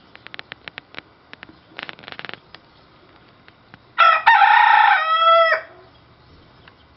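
A dwarf (bantam) rooster crowing once, a loud cock-a-doodle-doo of about a second and a half starting about four seconds in. Before it, a run of short, quick clicks in the first two seconds or so.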